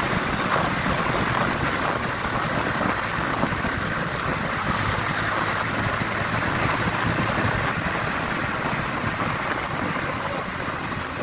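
Honda XRM125 Fi motorcycle's single-cylinder engine running steadily in fourth gear while cruising, under a heavy rush of wind and road noise on the microphone. It gets a little quieter near the end as the bike slows.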